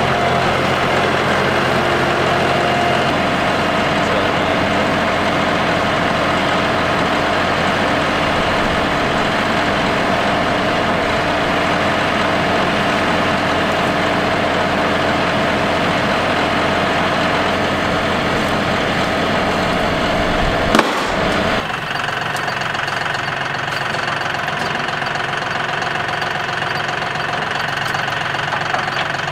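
John Deere 5075E tractor's three-cylinder diesel engine running steadily. About two-thirds of the way through there is a sharp click, and the engine sound changes abruptly to a thinner tone.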